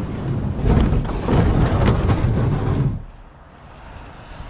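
Loud low rumbling and scraping as a kayak is moved down a concrete channel wall, stopping abruptly about three seconds in, then quieter background noise.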